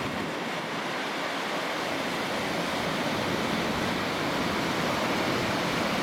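Atlantic Ocean surf breaking and washing on a sandy beach: a steady roar of noise that swells slightly in the second half.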